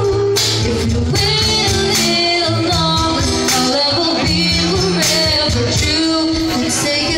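A band playing a song with singing, over a bass line that steps from note to note and regular percussion hits.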